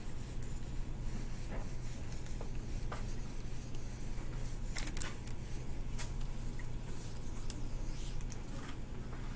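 Whiteboard eraser wiping dry-erase marker off a whiteboard: a series of short, scattered scuffs and taps.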